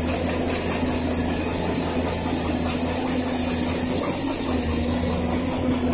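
Excavator's diesel engine running with a steady low hum.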